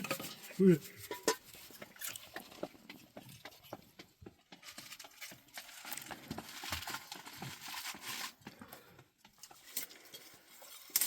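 Scattered light clinks and knocks of dishes and cooking utensils, over a soft hiss that thickens for a few seconds in the middle.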